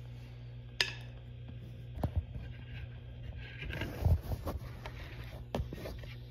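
Handling noise from a phone being moved about and set down: a few scattered knocks and clicks, the heaviest thumps about four seconds in, over a steady low hum.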